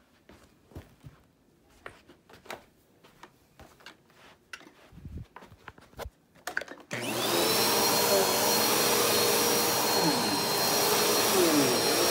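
A few faint clicks and knocks. About seven seconds in, an upright bagless vacuum cleaner switches on: its motor spins up quickly to a steady high whine and keeps running loudly.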